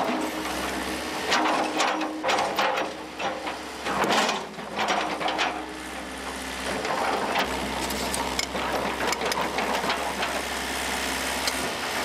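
Bulldozer engine running, with frequent irregular metallic clanks and knocks over the steady hum.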